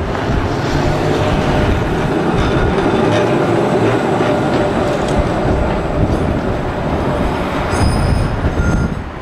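Blackpool double-deck tram running past on street track: a steady rumble of its wheels on the rails, with faint high squeals near the end as it moves away.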